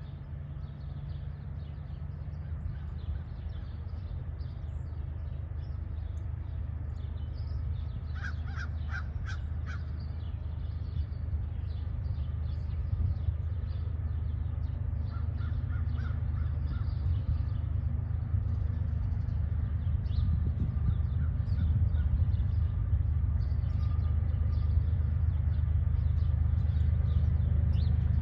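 Diesel locomotives of an approaching CPKC freight train, a low rumble that grows steadily louder as the train nears. A bird calls in a quick run of notes about eight seconds in, and again more faintly around fifteen seconds.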